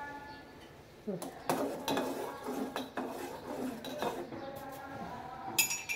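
Metal clinking and scraping against an aluminium pot of simmering milk tea as it is worked by hand. There are several separate knocks spread over the seconds and a sharper, brighter clink near the end.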